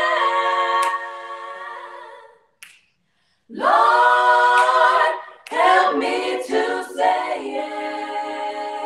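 Five young voices singing a gospel song a cappella in close harmony. A held chord fades out about two seconds in, then after a second's silence the group comes back in together, sings a run of short broken notes and settles on another held chord.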